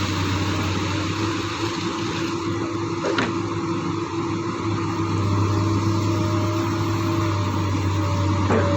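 Excavator's diesel engine running steadily with a low hum, growing slightly louder about halfway through, with two brief sharp clicks, one about three seconds in and one near the end.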